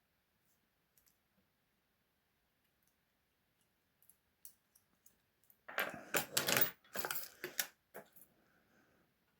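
Small metal pieces clinking and jangling as lock-picking wires and a lever padlock are handled. A few light clicks come about four seconds in, then a run of louder rattling and jangling from about six to eight seconds in.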